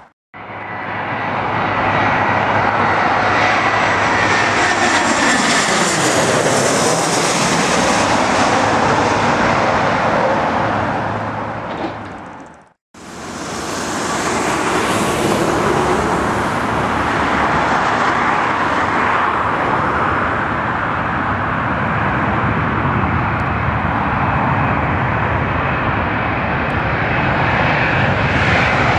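Jet airliners on final approach passing low overhead: a loud, steady engine rush with a high whine that slides down in pitch as a plane goes by. The sound cuts out briefly about thirteen seconds in, and another approaching jet takes over.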